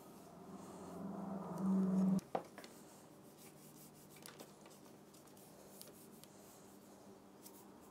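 Pilot Parallel pen nib scratching and tapping on paper in short, quick strokes, faint. A low steady hum swells over the first two seconds and cuts off abruptly, followed by a sharp click.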